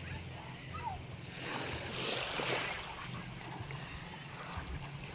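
Shallow seawater lapping and washing, with a louder wash of water about two seconds in, and wind rumbling on the microphone.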